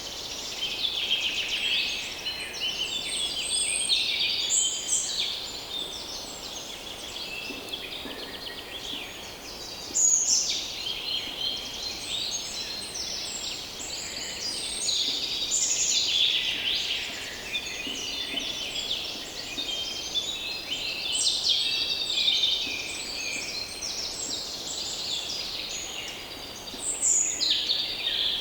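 Many songbirds singing and calling at once in a dense, overlapping chorus of chirps, trills and short phrases, over a soft breeze.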